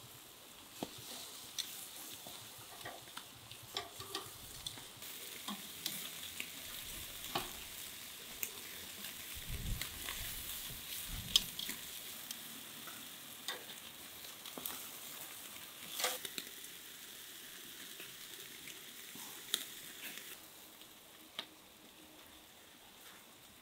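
Marinated meat sizzling over a charcoal grill: a steady hiss with scattered sharp crackles and pops, easing off near the end.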